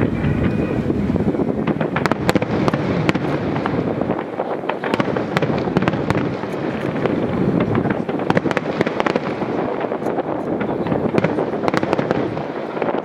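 Fireworks display: aerial shells bursting one after another with deep booms and dense crackling, overlapping with no gaps.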